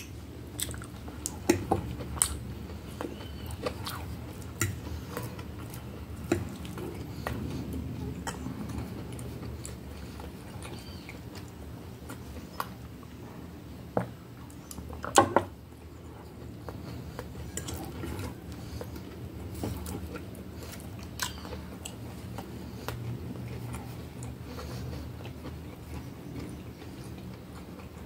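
Close-miked chewing and mouth sounds of someone eating spaghetti, with a metal fork clicking and scraping on a plate and sips from a glass.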